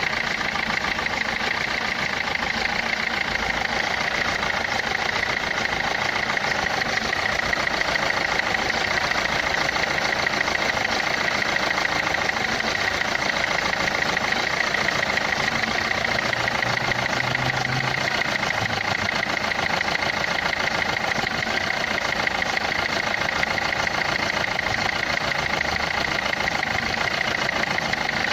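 Renault Clio 3's 1.5 dCi four-cylinder common-rail diesel idling steadily with a fast, even clatter, a noise put down to the injectors.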